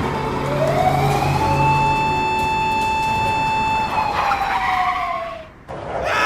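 Emergency-vehicle siren wailing in one slow cycle: it rises over about a second, holds steady, then falls away, over a low engine hum. A sudden loud cry begins right at the end.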